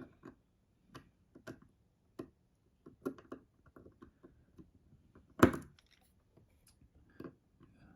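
Small scattered clicks and taps of a folding knife's parts and a Torx driver being handled on a work surface, with one louder knock about five and a half seconds in.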